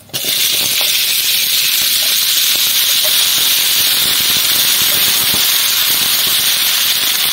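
Wet chopped vegetables, just lifted from their soaking water, going into hot oil in a metal kadai: a loud, steady sizzle that starts suddenly, with small crackles and spits all through. The water clinging to the vegetables is what makes the oil hiss so hard.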